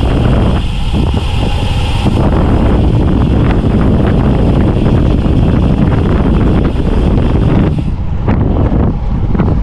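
Loud wind rushing and buffeting over the microphone of a road bike descending at speed. A higher hiss on top stops about two seconds in.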